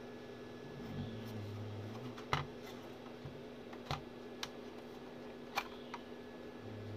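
Plastic case of an M-Audio Fast Track Pro USB audio interface being handled while it is taken apart: five or six sharp clicks and knocks, the loudest about two seconds in, over a steady low hum.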